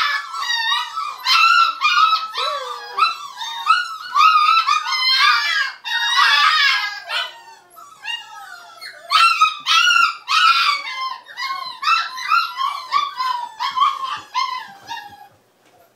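Nova Scotia duck tolling retriever puppy whining and yipping in a rapid, high-pitched run, about two or three cries a second, in excitement as she jumps at a toy in a hand. This is the excited toller scream. It breaks off about a second before the end.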